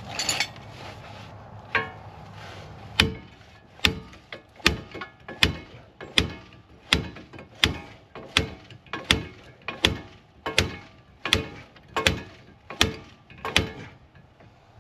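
A hand tool working metal parts on a car's front wheel hub and bearing: a steady run of sharp metallic clicks, about one every three-quarters of a second, starting about three seconds in and stopping near the end.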